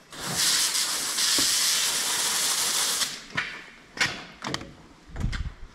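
A steady hiss lasting about three seconds that cuts off abruptly, followed by a few light knocks and a dull thump near the end.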